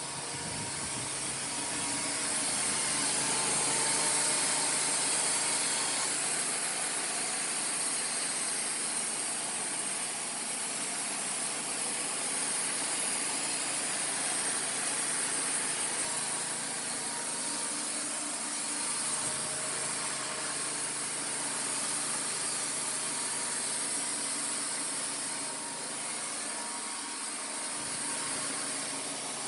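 Wood-Mizer band sawmill running steadily, its blade cutting through cedar. The sound swells over the first couple of seconds, then holds.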